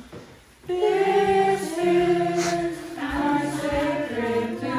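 A group of people singing together unaccompanied, in slow, long-held notes. The singing comes in after a short pause about half a second in.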